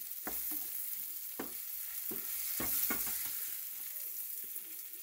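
Peppers and onions sizzling in hot oil in a skillet while a spatula scrapes and knocks against the pan, several sharp scrapes in the first three seconds, as the vegetables are lifted out.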